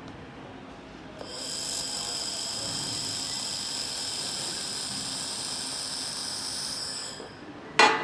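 A 2000 W handheld laser welder is fusing 3 mm aluminum for about six seconds. It makes a steady high-pitched hiss with several whining tones over it, starting about a second in and stopping near the end. Just after it stops comes a single sharp, ringing clank.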